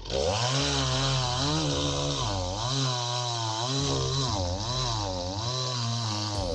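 Two-stroke chainsaw running hard, starting suddenly. Its engine pitch dips and recovers again and again, as when the saw is loaded in a cut.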